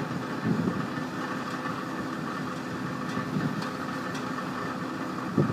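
Diesel engine of a yard tractor running steadily at idle while its hydraulic hoist lowers a raised end dump trailer box. There are two brief louder swells, one about half a second in and one near the end.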